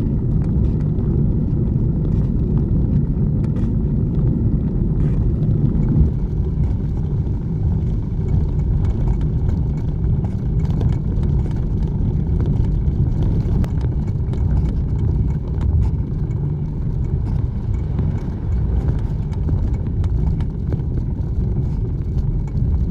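Steady low rumble of wind buffeting the microphone and tyres rolling on the road while a bicycle is ridden, with scattered small clicks and rattles.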